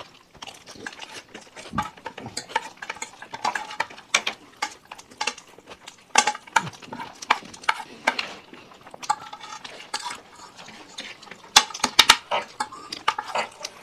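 Spoons clinking and scraping against plates in quick, irregular strokes as food is scooped up fast, with a cluster of sharper clinks about three-quarters of the way through.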